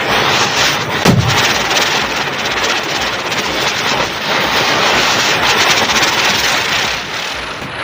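Many small red bijli firecrackers bursting in a rapid, dense crackling barrage over a steady hiss, with one louder bang about a second in.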